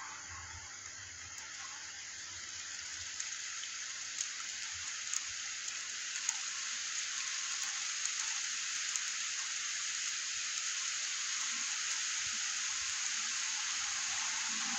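Steady rain hissing down outside, growing heavier over the first several seconds, with a few separate drops ticking close by.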